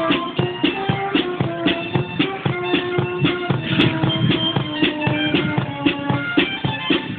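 A small band playing: held melody notes over a steady drum beat.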